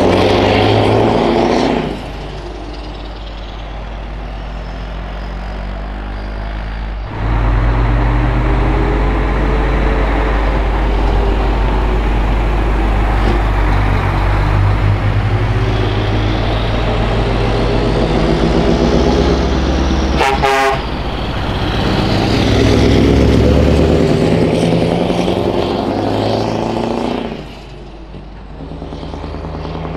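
Scania R560's V8 diesel engine, loud, pulling a trailer at low speed and accelerating, its pitch rising and falling with the throttle. The sound changes abruptly a few times between shots.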